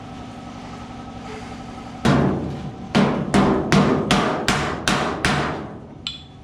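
Body hammer striking a car's steel quarter panel over a dolly, eight sharp ringing blows about half a second apart starting about two seconds in, knocking down distortion around the welded repair.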